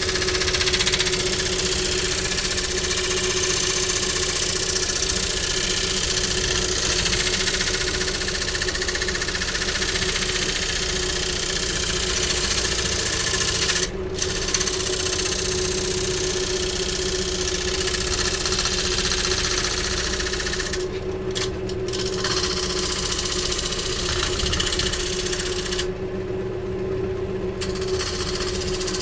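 Wood lathe motor running with a steady hum while a turning chisel cuts weeping willow wood, giving a dense scraping hiss; the cutting noise stops briefly three times, near the middle, about two-thirds of the way in and near the end, as the chisel is lifted, while the motor hum carries on.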